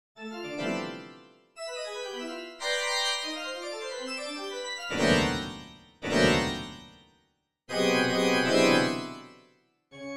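Organ chords in an atonal electroacoustic piece, in separate blocks broken by abrupt dead silences. A run of short stepping notes comes in the first half, then two loud chords about five and six seconds in that each die away within a second, and a sustained chord that swells and fades, with a new chord starting near the end.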